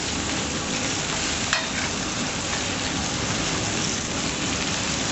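Steady hissing of a commercial kitchen range: a gas burner flame going full under an aluminium frying pan as a chef's spoon of oil goes in to heat. A single light metal knock about a second and a half in.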